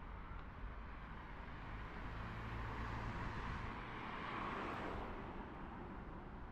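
A BMW i3 car driving past close by, its tyre noise on the road swelling to a peak about four and a half seconds in and then fading, over a steady low hum of city traffic.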